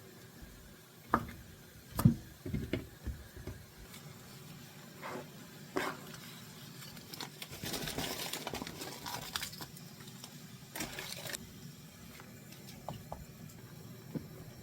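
Kitchen handling sounds: a run of sharp knocks and clinks of dishes and utensils, the loudest about two seconds in. A few seconds of noisy rustling follow near the middle.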